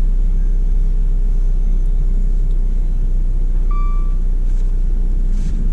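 Dodge Dart's engine idling, a steady low-pitched sound heard from inside the cabin, with a short electronic dashboard chime about four seconds in.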